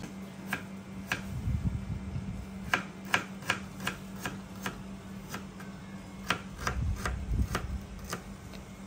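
Knife tapping and clicking on a cutting board during kitchen preparation, roughly two sharp taps a second with a few soft thuds, over a steady low hum.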